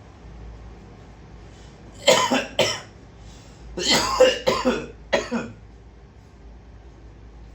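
A person coughing harshly in two fits: a couple of coughs about two seconds in, then a longer run of three or four coughs from about four seconds in.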